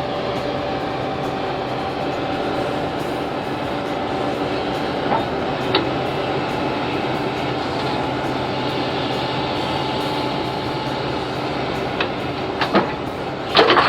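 Excavator running steadily while it pulls mud with a long boom extension and steel blade, with a few sharp metal squeaks and clanks, most of them near the end.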